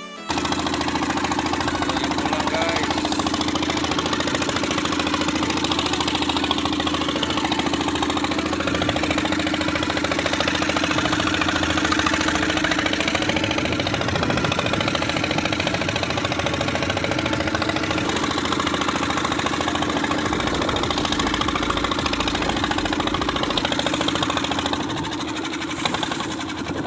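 Boat engine running steadily at a constant speed, heard close up on board, with a steady hum over its noise.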